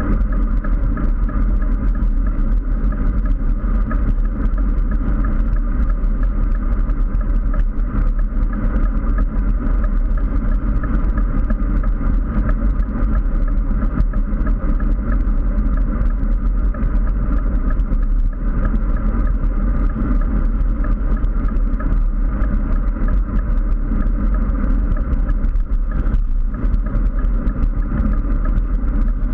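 Steady wind rumble on a bike-mounted GoPro's microphone, with tyre and road noise, as a road bike rides along at speed.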